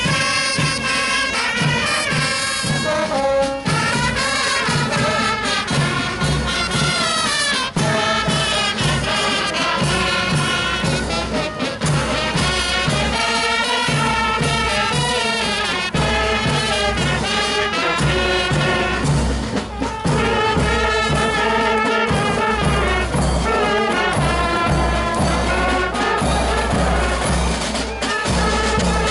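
Marching brass band playing a march, euphoniums, trumpets and trombones over a steady bass drum beat.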